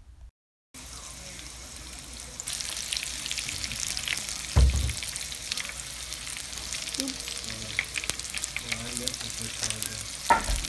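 Breaded chicken pieces shallow-frying in oil: a steady sizzle full of small crackling pops. It starts after a moment of silence and grows louder about two and a half seconds in. Two dull knocks, one about four and a half seconds in and one near the end, come as tongs turn the pieces in the pan.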